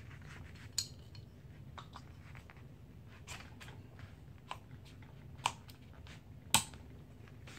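Hands fitting a pistol grip onto an AR-15 lower receiver: scattered light clicks and taps of the grip and parts against the receiver, the sharpest about six and a half seconds in.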